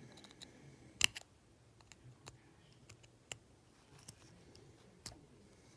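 Sharp little clicks and taps of small hand tools working on a die-cast toy car's metal tabs: one louder click about a second in, then scattered lighter ticks.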